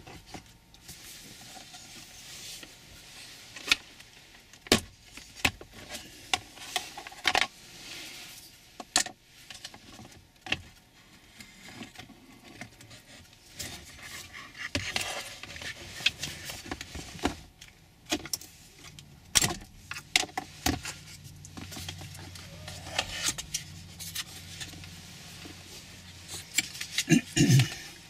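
Hard plastic trim being handled and unclipped: scattered sharp clicks, snaps and light rattles. A wiring connector is unplugged from the Toyota RAV4's center console cluster and the wireless charger tray is pried out of its clips.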